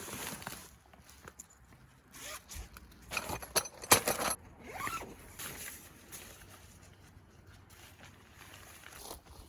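A zipper being pulled in several short strokes, the loudest about four seconds in, one of them rising in pitch.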